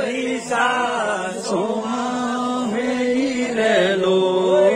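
Men singing a Nanda Devi devotional folk song in a slow, chant-like melody with long held notes that glide from pitch to pitch.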